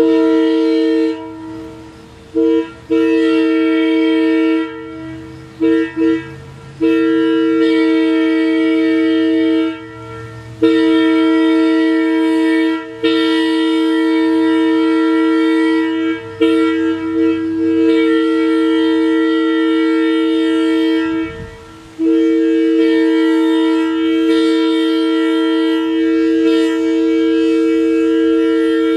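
Leslie locomotive air horn sounding a chord of two strong low notes: a string of short, choppy blasts for about the first ten seconds, then three or four long blasts of several seconds each with brief breaks between them.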